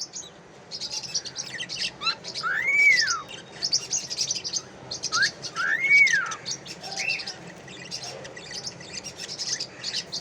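Cockatiel whistling: two arched whistle notes that rise and fall, about three seconds apart, each led by a short upward note, with a shorter note after the second. Quick high chirps and chatter continue between them.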